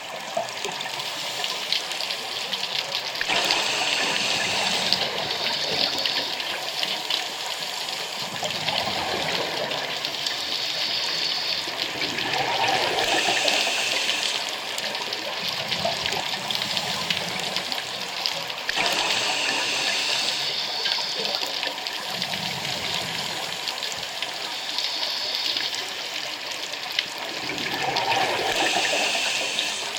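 Scuba diver breathing through a regulator underwater: a hissing inhale alternates with a burst of exhaled bubbles, in a slow cycle that repeats about every eight to nine seconds.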